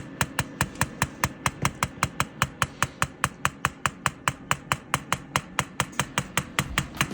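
PEMF8000 Pro pulsed electromagnetic field therapy machine clicking with each magnetic pulse, a steady, even rhythm of sharp clicks at about five a second.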